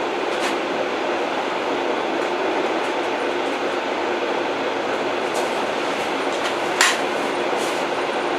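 Old train running on the rails: a steady rumble with a few sharp clacks, the loudest one near the end.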